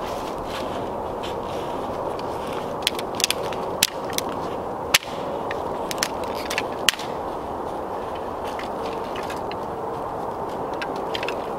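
Small stick campfire crackling, with a cluster of sharp pops and snaps of burning twigs a few seconds in, over a steady low hiss.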